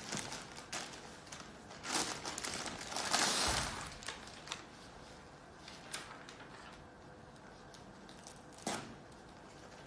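Clear plastic bag crinkling and rustling as a wrapped surgical pack is slid out of it and the bag is pulled away, loudest about three seconds in. Softer rustling and small clicks of the blue nonwoven wrap follow as it is handled, with a brief louder rustle near the end.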